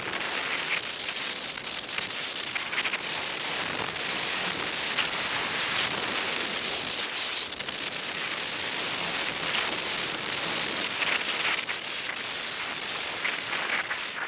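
Skis running through powder snow: a steady hiss of sliding snow and air rush that swells and eases slightly with the turns.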